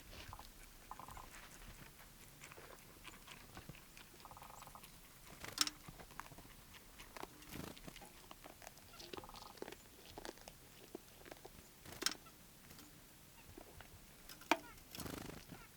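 Irregular small crunching and clicking, like an animal chewing food, with three sharper snaps, the last near the end, and two brief rattling sounds.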